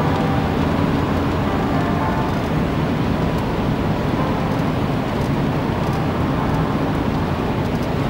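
Scania truck heard from inside the cab while driving at road speed: the diesel engine and tyre and road noise make a steady drone.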